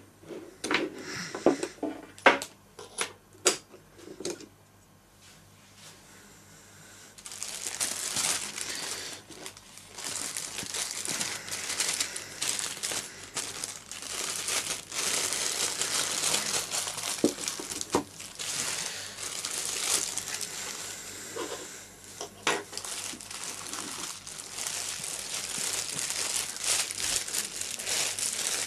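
Clear plastic bag crinkling continuously as it is wrapped by hand around a hard drive. In the first few seconds, a few sharp clicks and knocks as the drive is handled and taken out of its external enclosure.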